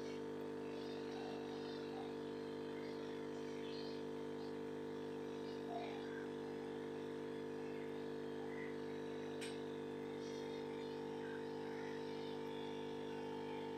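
Steady hum of aquarium equipment, several held tones together, with faint brief high sounds scattered over it and one sharp click about nine and a half seconds in.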